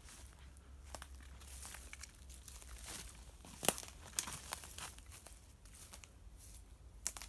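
Footsteps pushing through woodland undergrowth: dry twigs and leaves crackling and snapping underfoot and branches brushing past, in irregular crackles with a sharper snap about halfway through.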